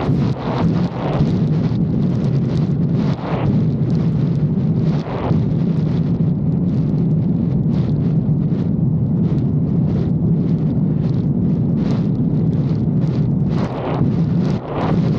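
Yamaha jet ski engine running steadily at speed with a constant low drone, under heavy wind buffeting on the microphone. The gusts are heaviest in the first few seconds and again near the end.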